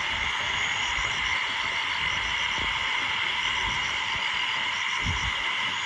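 Steady night chorus of frogs and insects in monsoon forest, with continuous trilling and small repeated chirps high above it.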